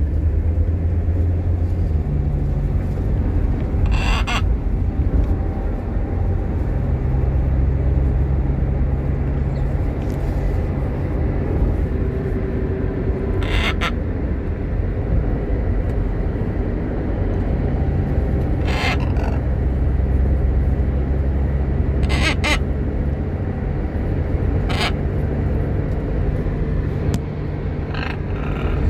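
Short, harsh parrot calls, about six of them spaced several seconds apart, over a steady low rumble.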